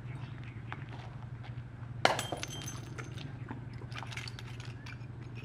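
Glass breaking about two seconds in: one sharp crash, then ringing and small tinkling clicks as the pieces settle, over a steady low hum.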